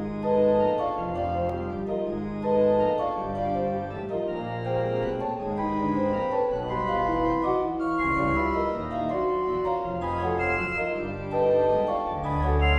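MIDI-rendered pipe organ playing a modern piece: changing chords on the manuals over a low pedal line that carries the melody.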